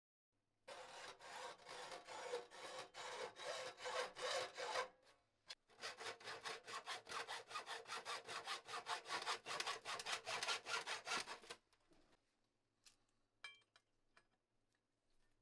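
Hacksaw cutting through a thin sheet-metal grill side panel in quick back-and-forth strokes, about four a second, in two runs with a brief pause about five seconds in. Near the end come a few faint clicks and taps.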